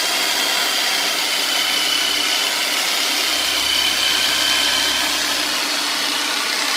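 Motorized massage tool, a handheld "meat tenderizer", running steadily as it is worked into the hamstring muscles to break up trigger points: a constant machine noise with a thin high whine. A deeper hum joins about three seconds in and drops out shortly before the end.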